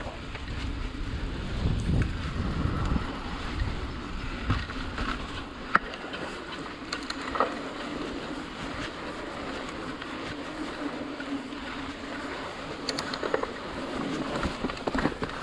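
Mountain bike rolling along a dirt singletrack: tyre noise and wind buffeting the microphone, heaviest in the first few seconds, with scattered clicks and rattles from the bike.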